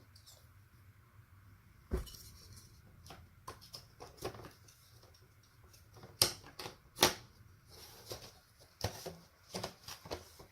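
Wooden beehive frame and box parts clicking and knocking as they are handled and fitted together: scattered sharp knocks, the loudest two about six and seven seconds in.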